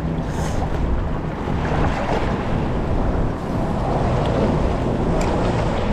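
Wind buffeting the microphone over moving water, with a steady low hum underneath.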